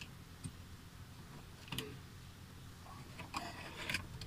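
Faint plastic clicks as the Maruti Swift Dzire's cabin air filter is worked free of its housing clips. About three seconds in comes a short scraping rustle as the filter slides out of the housing.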